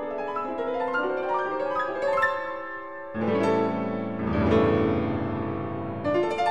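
Background piano music: a run of notes, with fuller, lower chords coming in about halfway through.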